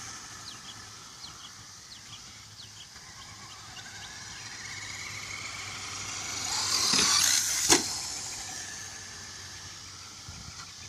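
Traxxas two-wheel-drive RC car with a Velineon brushless electric motor driving, its motor and tyre noise building to a peak about seven seconds in, then one sharp knock.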